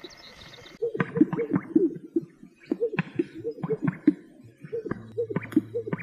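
Male greater sage-grouse courtship display: its inflated yellow chest air sacs make a run of low bubbling pops and gurgles, coming in quick clusters.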